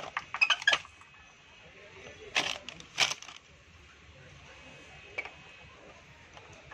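Hard plastic parts of a stacking ball-tower toy clicking and knocking together as its tiers are handled and fitted onto the base: a quick run of clicks at the start, then two louder clatters about two and a half and three seconds in.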